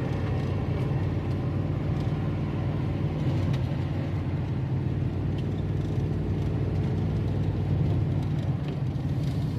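Dodge Ram 1500 pickup driving at a steady pace, heard from inside the cab: an even drone of engine and road noise.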